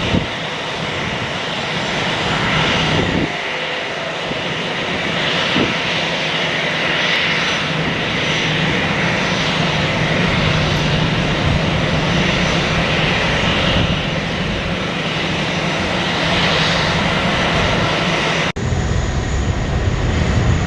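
Airliner engines running steadily with a loud, even rushing noise that swells and eases slowly. About 18.5 s in the sound cuts abruptly and comes back deeper.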